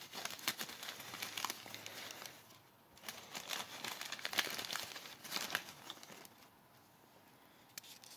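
Packing material crinkling as it is handled and unpacked, in two stretches of dense crackling: one of about two and a half seconds, then after a short gap another of about three seconds that stops about six seconds in.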